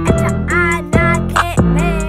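Hip-hop beat: music with a steady drum pattern and a melodic line over it, with a deep bass note swelling near the end.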